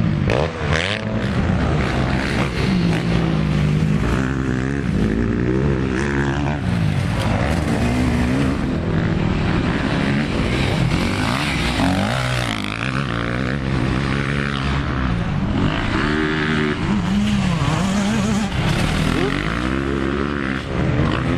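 Motocross bike engines revving hard and easing off again and again as riders take jumps on a dirt track, the pitch swooping up and down every few seconds.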